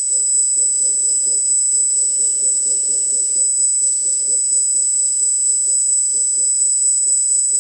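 Hydraulic system of a 1/14 LESU RC crane truck running: the electric pump's steady high whine with a rough buzz under it as the crane boom lifts and reaches out.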